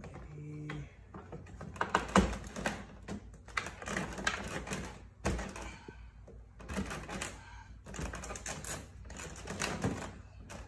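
Plastic fog light bezel on a 2020 Toyota Camry's front bumper being pressed and tapped into place: several bursts of rapid plastic clicking and rattling as the bezel fails to snap in.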